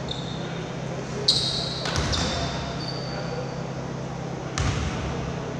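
A basketball bounced on a hardwood gym floor as a free-throw shooter dribbles before his shot: two slow bounces about two and a half seconds apart. Short high sneaker squeaks come between the bounces, over a steady low hum of the gym.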